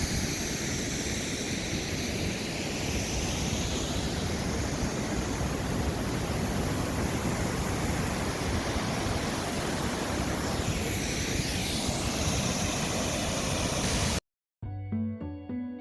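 Waterfall roaring: a steady, loud rush of falling water that cuts off abruptly about a second and a half before the end, when soft music begins.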